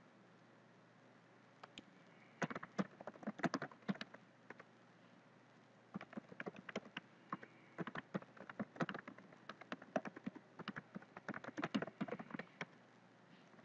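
Typing on a computer keyboard: three runs of quick key clicks with short pauses between them.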